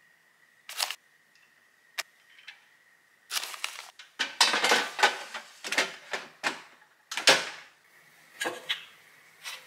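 Plastic air fryer basket slid into the fryer with scraping and knocks, then scallop shells clinking as they are set down on a plate with tongs.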